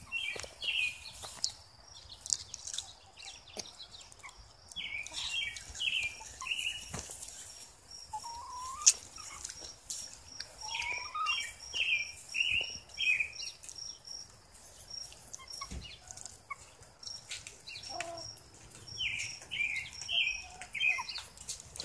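A bird chirping in short phrases of four or five quick, falling notes, repeated every several seconds, with a few softer, lower calls between them and a faint, steady, high pulsing behind.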